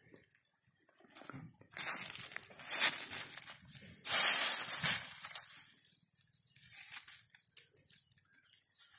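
Dry fallen leaves and twigs crunching and rustling in bursts, the loudest about four seconds in, then fading to faint scratching.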